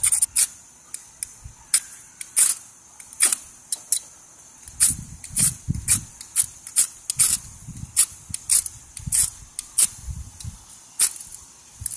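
Metal striker scraped again and again down a magnesium fire-starter rod, short sharp rasps at about two a second, with low rumbling between strokes in the second half.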